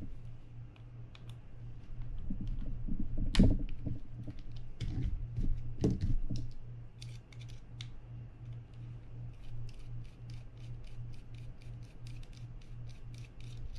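Small screwdriver clicking and scraping against the metal parts of a Daiwa BG90 spinning reel's rotor and anti-reverse assembly as parts are prised off, with a couple of louder knocks and a run of light, rapid ticks in the second half. A steady low hum sits underneath.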